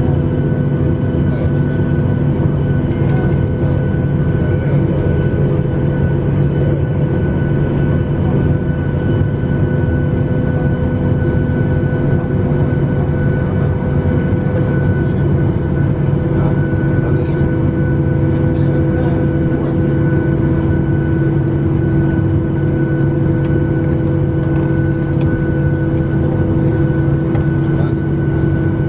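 Cabin noise of a Boeing 737-800 taxiing, heard from a window seat over the wing: its CFM56 engines at idle give an even hum with several held tones, and a new tone joins about halfway through.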